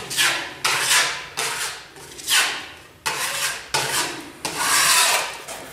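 Steel putty knife scraping fibre-reinforced filler over fibreglass mesh on a wall, about seven rasping strokes in turn up and down, roughly one every 0.7 s, the last one longer.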